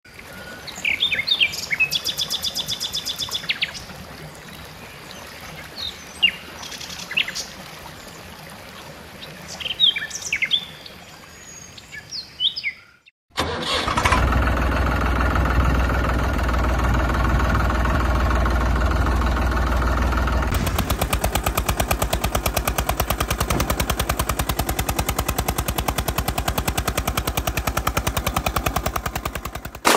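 Birds chirping for about the first twelve seconds. After a short break, a tractor engine sound starts and runs steadily with a fast, even chug, changing tone a little about twenty seconds in.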